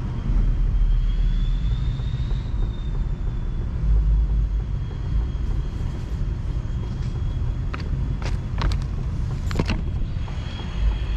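A steady low rumble, then a few sharp knocks and rubs of the GoPro being handled and picked up about eight to ten seconds in.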